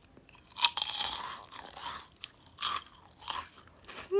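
Crisp, cheese-flavoured snack being bitten and chewed close to the microphone: four or five separate crunches, the loudest just over half a second in.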